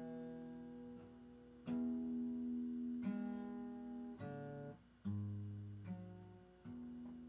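Acoustic guitar playing an instrumental passage: about five strummed chords a second or so apart, each left to ring.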